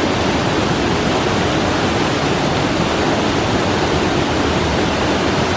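Waterfall pouring and splashing, a loud steady rush of falling water heard from a bridge in front of the falls.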